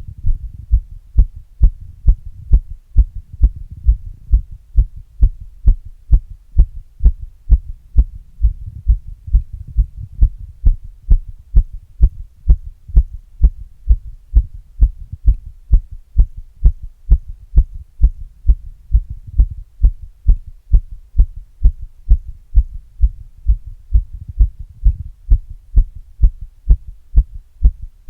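A person's heartbeat picked up through an earbud microphone held against the chest with a glass: regular, evenly spaced low thumps, about two a second, with a faint hum beneath.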